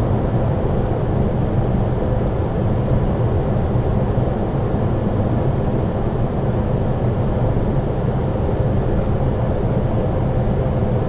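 Steady flight-deck noise of an Airbus A320neo on final approach in landing configuration: a low, even rush of airflow and engine hum with a faint steady tone.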